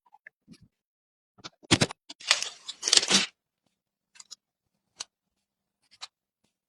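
Hands handling PC parts and packaging: a loud burst of rustling and scraping about two seconds in, with a few scattered small clicks before and after.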